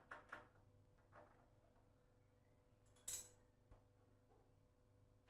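Near silence with a few faint small taps or clicks, the sharpest about three seconds in.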